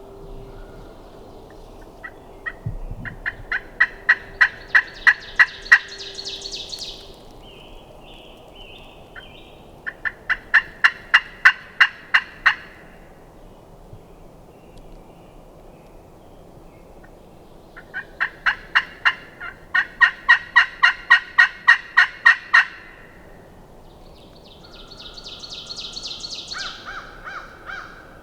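Hen turkey yelps made on a hunter's turkey call: several loud strings of evenly spaced raspy notes, about four a second, each lasting a few seconds with pauses between, then a steadier raspy call near the end. This is locator calling meant to get a gobbler to answer.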